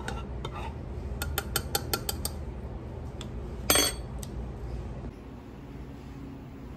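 A metal teaspoon clinking against a ceramic mug, about half a dozen quick taps, then one louder clatter as the spoon is laid down on the counter.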